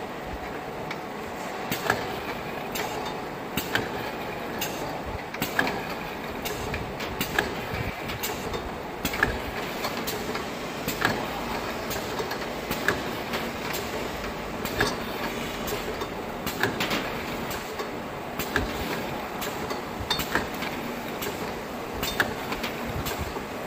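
Automatic jar labeling machine and its conveyor running, a steady mechanical noise with frequent irregular clicks and knocks as the glass jars move along the belt.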